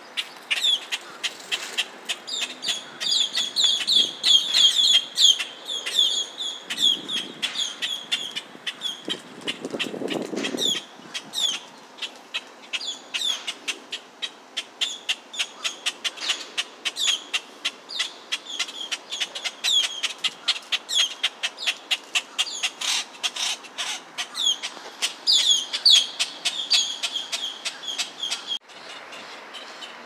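Young grackles calling: a fast, continuing run of short, high, sharp chirps, several a second.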